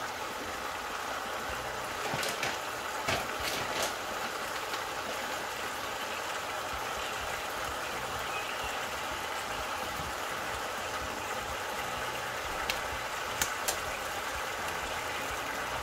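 Cabbage, peppers, carrots, onions and turkey wings sizzling steadily in a nonstick frying pan, with a few taps and scrapes of a wooden spatula against the pan about two to four seconds in and again near the end.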